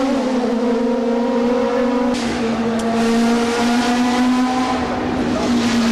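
Race car engines running at high revs on the circuit: a loud, steady, high-pitched drone that holds almost the same pitch, its tone shifting about two seconds in as the mix of cars changes.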